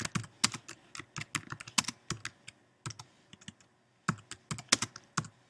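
Typing on a computer keyboard: a quick run of key clicks, a brief pause a little past halfway, then more typing.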